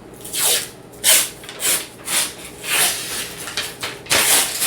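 Short rustling or tearing bursts, about two a second, from hands working a paper-wrapped tube of refrigerated biscuit dough.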